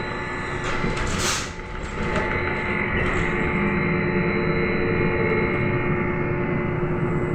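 Cabin noise of a Trolza-5265 Megapolis trolleybus under way: a steady electric whine from the traction drive over the low rumble of the road. A short hiss about a second in.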